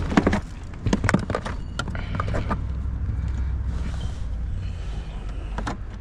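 Clicks, knocks and light rattles of a breakout box and its cable being handled and plugged into the car's OBD data link connector under the dash, over a steady low hum.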